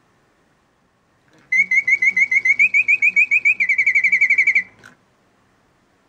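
Antique French mechanical singing bird's bellows-blown piston whistle sounding a run of rapid chirping birdsong notes, in three phrases with the last one faster, for about three seconds before it stops. A soft low pulse about twice a second from the mechanism runs underneath.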